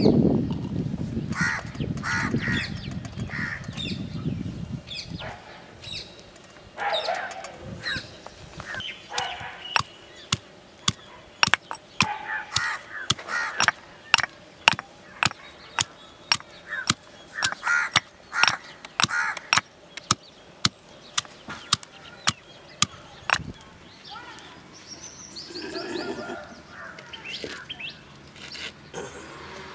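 Stone pestle pounding garlic cloves in a stone mortar: a long run of sharp knocks, about two a second through the middle stretch, with birds calling repeatedly throughout.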